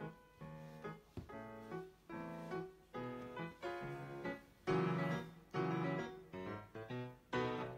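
Background piano music: notes and chords struck one after another, each fading away.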